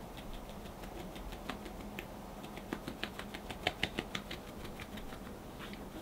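A fine-mesh sieve being tapped to sift cocoa powder into a glass bowl: a run of light, rapid ticks, about five a second, loudest a little past the middle.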